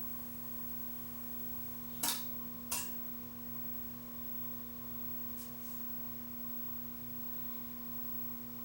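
Steady low hum with a few fixed tones from a running Panasonic plasma TV and its cooling fans, with two short clicks a little over two seconds in.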